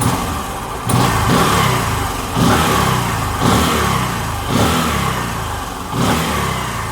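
Bajaj Pulsar 135 LS single-cylinder four-stroke motorcycle engine running just after starting on a newly fitted starter motor. The throttle is blipped about five times, the revs rising sharply and falling back after each.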